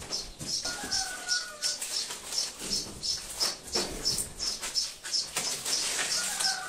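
Rhythmic scraping strokes, about three a second, from hand work on the fireplace build.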